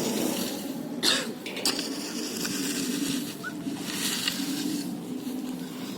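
A person coughing a few times over a steady background hiss.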